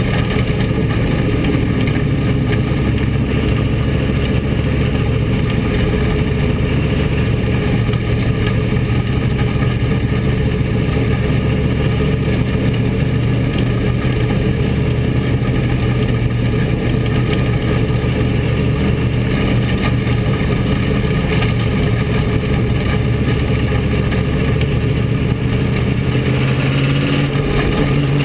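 Bomber-class dirt track race car's engine running steadily, heard from inside the cockpit; its pitch changes near the end.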